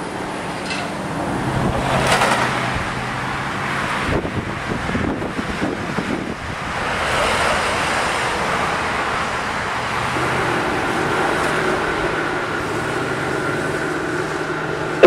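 Road traffic: cars passing, with the noise swelling about two seconds in and again from about seven seconds in.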